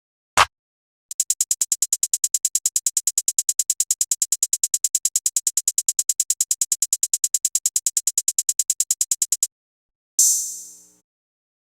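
Programmed trap drum-machine hi-hat samples: a single short hit, then a fast, even hi-hat roll of about ten hits a second for some eight seconds. Near the end comes one longer, brighter hit that rings out for under a second.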